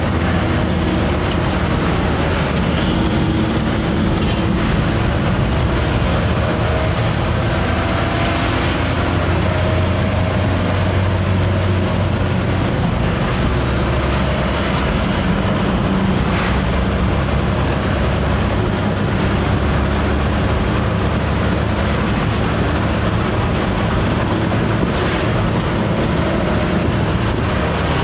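Truck engine running at road speed with tyre and road noise, heard from inside the cab: a steady low rumble with a faint high whine that comes and goes.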